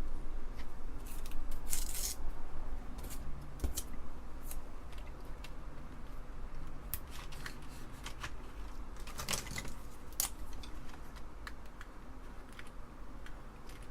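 Small hand and tool sounds on the Apple II Plus keyboard's parts: scattered light clicks and a few short scratchy strokes, bunched about two seconds in and again around nine to ten seconds in.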